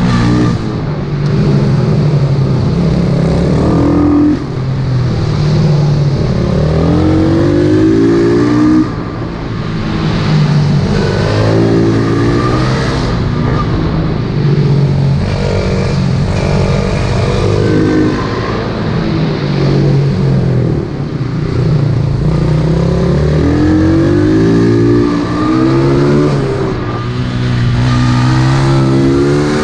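Single-cylinder pit bike engine, heard from on the bike, revving up in repeated rising sweeps as it accelerates out of corners and dropping back off the throttle between them.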